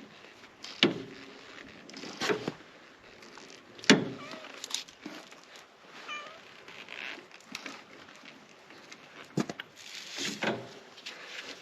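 Domestic cat meowing several times in short separate calls, with a few sharp knocks and clicks between them.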